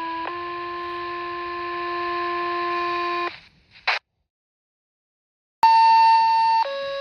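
Fire dispatch two-tone paging tones: a short tone steps to a longer steady tone that stops about three seconds in, a short crackle follows, and after a brief pause a second pair begins, a loud higher tone dropping to a lower steady one. Each tone sequence sets off a fire department's pagers ahead of the dispatcher's voice call.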